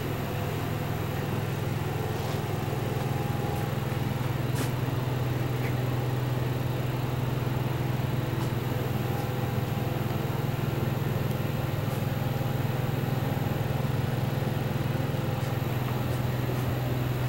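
Motorhome air conditioning running: a steady low hum with a constant rush of air.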